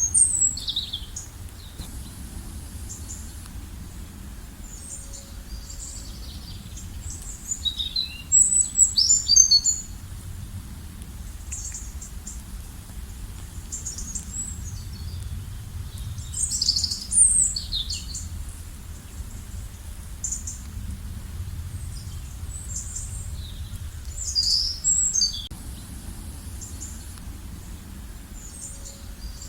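Small birds chirping and trilling in short high calls, in loose clusters with a few louder bursts, over a steady low rumble.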